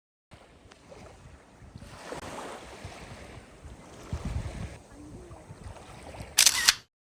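Seaside wind buffeting the microphone over the wash of surf, gusting stronger a couple of times, with a short sharp burst near the end.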